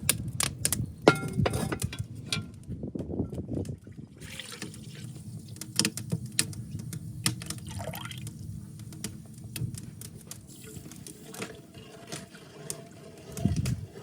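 Liquid pouring and splashing, with irregular small clicks and knocks throughout, busiest in the first few seconds.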